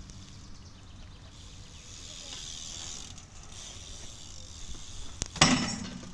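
BMX bike rolling on asphalt, a steady hiss of its tyres, then a sharp click and a loud knock about five seconds in as the bike meets the quarter pipe.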